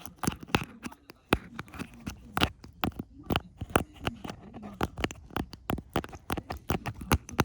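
Young tabby kitten biting and clawing at the camera right against the microphone: rapid, irregular clicks, taps and scratches of teeth and claws on the device.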